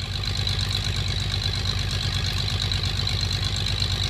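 An engine running steadily at idle, with a steady high-pitched buzz over it.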